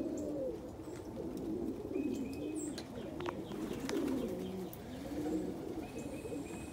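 Domestic pigeons cooing, several low calls overlapping one another.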